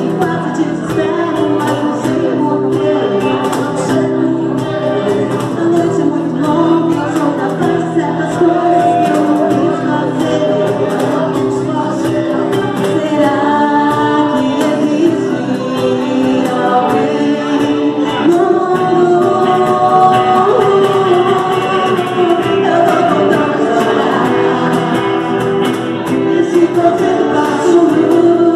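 Live pop band playing a song: a woman and a man singing together into microphones over electric guitar and keyboard, with a steady percussive beat.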